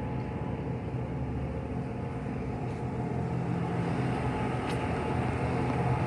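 Forklift engine running with a steady low hum that grows slightly louder.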